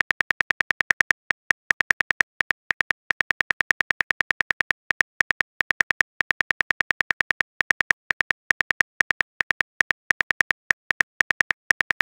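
Phone keyboard typing sound effect: a rapid run of short, crisp clicks, several a second, broken by brief pauses, one click per letter as a message is typed out.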